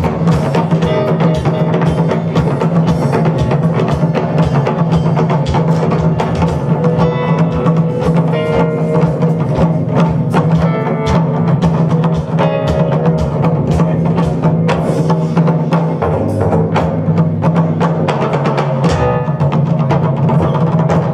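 Live ensemble music: Japanese taiko drums played together with a drum kit, electric bass and keyboard in a funk groove, with dense, steady drum strikes over a held bass line.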